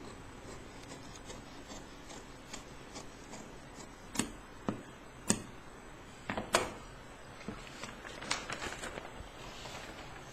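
Handling of a cut-out pattern piece on a cutting table: scattered sharp crackles and taps, with a few louder snaps between about four and seven seconds in, the loudest near six and a half seconds, and a quicker run of small crackles a little later.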